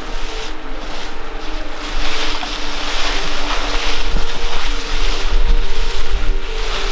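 Wind blowing over the microphone outdoors: a steady rushing noise with a low rumble, growing louder about two seconds in.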